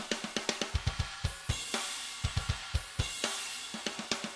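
Programmed drum kit playing back from a virtual drum sampler: fast double bass drum runs with snare hits and cymbal wash. The kick is an already replaced sample, while the snare is the sampler's stock snare, which sounds really thin.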